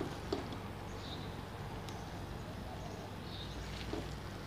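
A metal spoon stirs thick chicken curry in a metal pot, scraping and giving a few faint clicks against the pan, over a steady low hiss.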